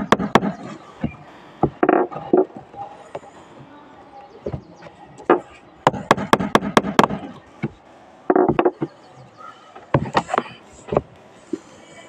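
A hammer striking the end of a flat-blade screwdriver, driving it like a punch into a red fire-system pipe. The blows are sharp taps in short quick runs; the longest, near the middle, is about six blows in a second.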